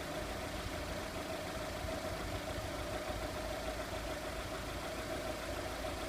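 2002 VW Polo 1.4 four-cylinder petrol engine idling steadily, with a low rumble and a constant mid-pitched hum.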